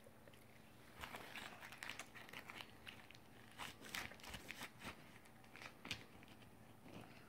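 Candy wrapper crinkling in irregular crackles as it is handled, starting about a second in.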